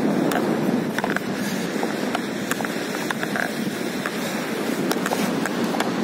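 Steady rushing noise of wind and surf on a sandy beach, with scattered small clicks and crackles through it.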